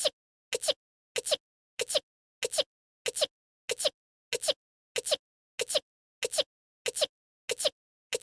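A tiny voice-acted anime sneeze, one short two-part sneeze clip looped over and over. It repeats about one and a half times a second with dead silence between.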